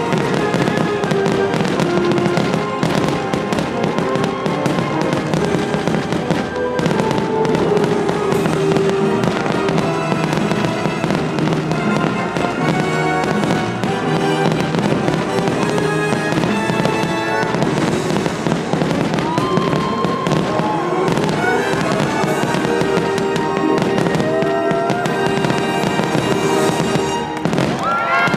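Fireworks bursting again and again over a loud orchestral show soundtrack, with a few whistling glides near the end.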